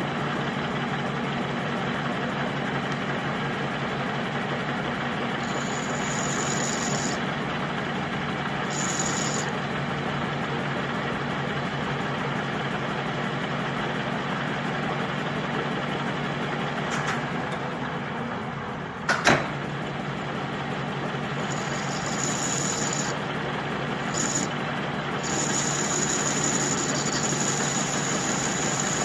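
Engine lathe running steadily, the spindle and gearing humming as a bush is turned in the chuck under hand feed. A single sharp knock about 19 seconds in.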